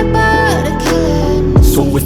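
Pop song playing: held notes over chords, with one deep bass drum hit that falls in pitch about one and a half seconds in.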